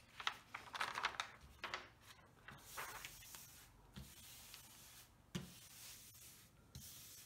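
A large diamond painting canvas crinkling as it is turned over, then hands rubbing and sweeping across it to smooth it flat.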